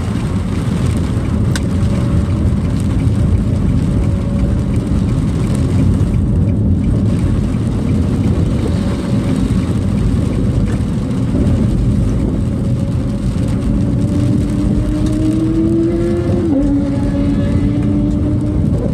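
Car engine and road rumble heard from inside the cabin while driving, steady and low. Near the end, an engine tone climbs slowly in pitch as the car speeds up, then drops suddenly at a gear change.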